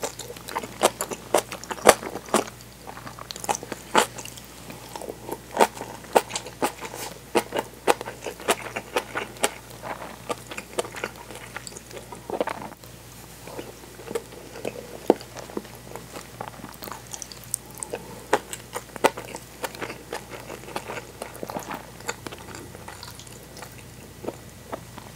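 Close-up chewing of chilled tofu with kimchi and soft-boiled egg: irregular wet mouth clicks and crunches, one after another.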